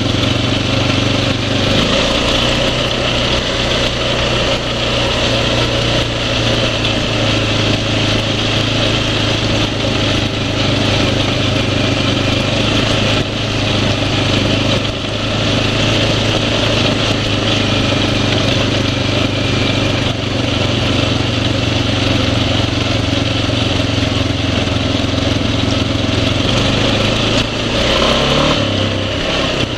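Single-cylinder four-stroke ATV engine running steadily at an even speed, its pitch shifting briefly near the end.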